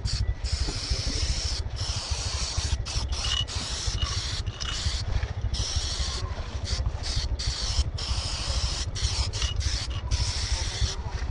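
Aerosol spray-paint can hissing in stop-start strokes, long sprays broken by many brief pauses, over a steady low rumble.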